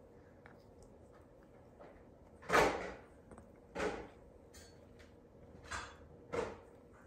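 Sulcata (African spurred) tortoise eating from a plate: four short bites of food, about a second or two apart, the first the loudest.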